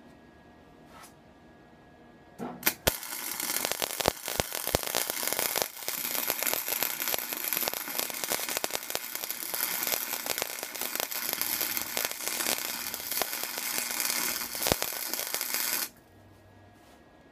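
Electric arc welding on a fork brace: a couple of sharp pops as the arc strikes, then about thirteen seconds of steady crackle and sputter, which stops suddenly near the end as the arc is broken.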